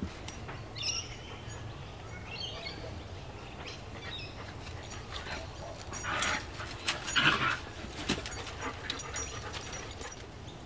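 Siberian husky puppies play-fighting, with short high whines about a second in and again two to three seconds in, then louder yips around six and seven seconds in.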